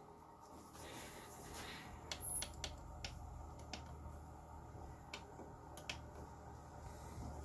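Plastic push-buttons on a Hannspree LCD TV's front control panel clicking several times as they are pressed, over a faint low hum.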